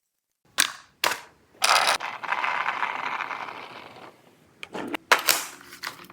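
XYL ARP556 toy gel blaster rifle being worked: two sharp plastic clicks, then about two and a half seconds of continuous mechanical rattle that fades out, then another quick cluster of clicks near the end.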